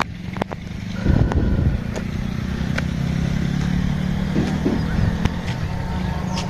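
A small vehicle's engine running steadily while under way, a continuous hum with scattered sharp rattles and knocks.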